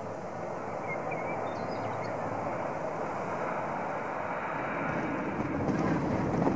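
Jet engines of an Airbus A320-family airliner at takeoff thrust as it lifts off and climbs out: a steady rushing jet noise with a low rumble, growing louder toward the end.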